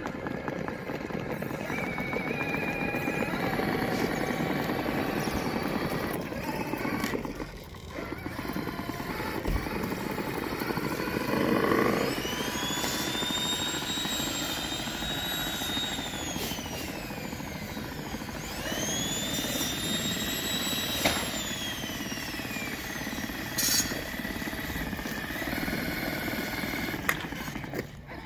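Axial SCX6 electric RC crawler with a toddler aboard, driving on asphalt: a steady rolling noise, and twice in the second half a high motor and gear whine that rises as it speeds up, holds, then falls away as it slows.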